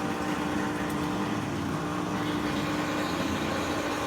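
Maytag top-load washer's drain pump running with a steady hum during the drain stage of the automatic diagnostic test.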